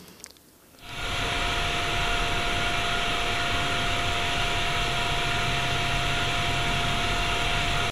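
Auralised factory noise: an anechoic factory-noise recording rendered binaurally in a simulated large industrial hall. It plays as steady machinery noise with a constant mid-pitched tone in it, starts about a second in and cuts off abruptly when playback is stopped.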